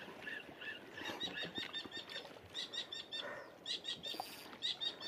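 Old fishing reel squeaking in a quick rhythm as the line is wound in, the squeaks coming faster in the second half; the reel is worn with age.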